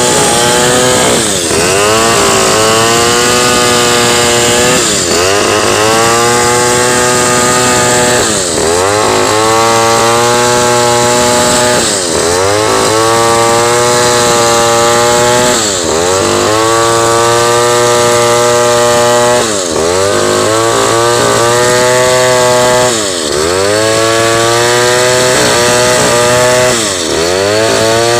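Two-stroke chainsaw running hard, its engine pitch dipping and recovering roughly every four seconds, as when the saw bogs under load or the throttle is eased and opened again.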